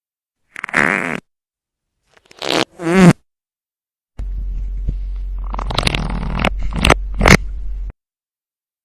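Three separate fart sounds split by dead silence. A short buzzy one comes about half a second in, then a longer one sliding down in pitch around two and a half seconds in, and finally a sputtering run of nearly four seconds over a low hum that ends in a few sharp pops.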